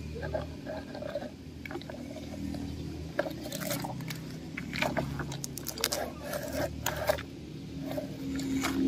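Plastic toy truck wheels rolling and scraping over dry dirt and small stones, with scattered crunches and clicks, over a low steady hum.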